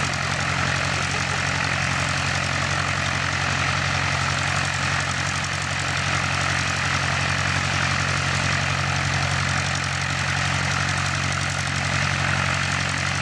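Cessna 150's Continental O-200 four-cylinder engine and propeller running at low power, a steady, unbroken drone.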